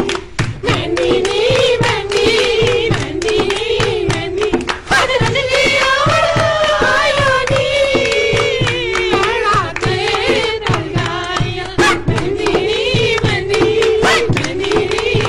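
A group of voices singing a Hindi mehndi wedding song to a steady rhythmic beat of hand percussion.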